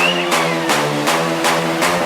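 Background music with a steady beat, about three strokes a second, over held synth chords.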